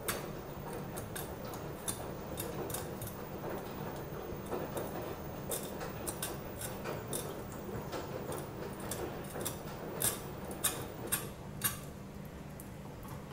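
Irregular small clicks and light scraping as a kitchen knife blade is worked around a raw chicken wing bone on a plastic cutting board, cutting the skin free. A few sharper clicks come near the end.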